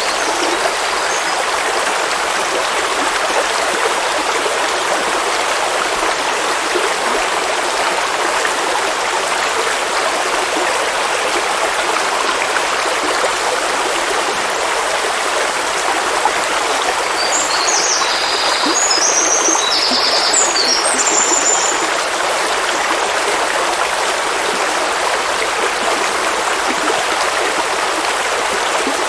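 River water rushing and babbling steadily over rocks. A bird chirps several times in quick succession about two-thirds of the way through.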